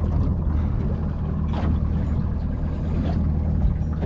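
Boat motor idling with a steady low hum, with two brief louder swishes about a second and a half and three seconds in.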